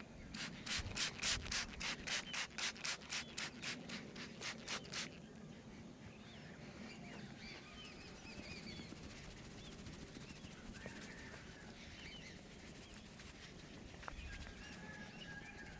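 Hands rubbing briskly over hair and scalp in a head massage: a quick scratchy stroke about four times a second, stopping about five seconds in. Faint bird chirps follow.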